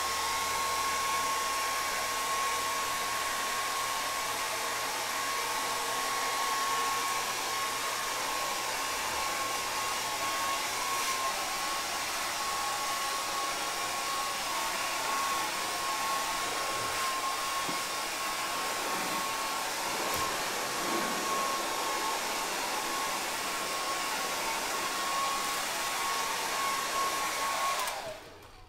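Handheld hair dryer running steadily, a rush of air with a steady whine over it. It comes on at the start and cuts off near the end.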